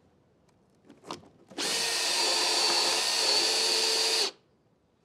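Handheld power drill running steadily for just under three seconds and then stopping sharply, driving a fastener through a pre-drilled hole to lock a wooden rafter to a main beam. A short knock comes just before it starts.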